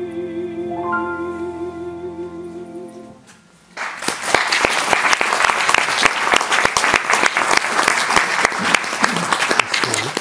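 A female opera singer holds a final note with vibrato over sustained piano chords, ending about three seconds in. After a brief hush, an audience breaks into applause that continues.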